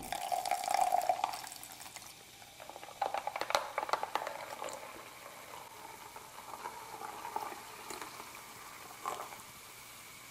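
Wet eating sounds of creamy Alfredo pasta: a slurp at the start, then a run of wet smacking and chewing clicks about three to four seconds in, then softer mouth sounds.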